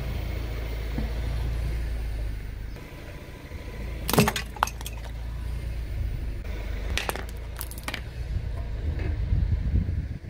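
A car tyre rolling slowly over brick paving with a low rumble, crushing brittle objects: a burst of sharp cracks and snaps about four seconds in, and more sharp clicks about seven seconds in.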